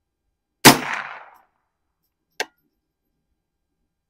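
A single AR-15 rifle shot about half a second in, with a short echoing tail. About two seconds later comes one brief, sharp clang.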